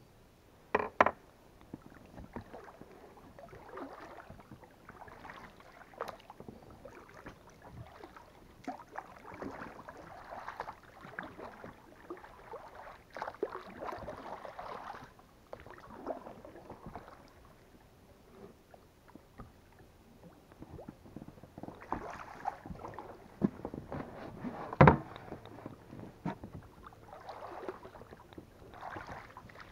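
Oars rowing an inflatable boat: irregular swishing, splashing strokes in the water, with two sharp knocks, one about a second in and a louder one near the end.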